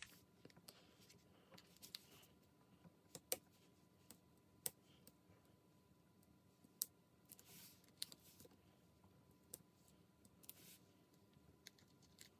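Faint, scattered sharp clicks and taps, about one every second or so, as the tip of a small pair of scissors lifts glossy adhesive dots off their backing sheet and presses them onto a paper card.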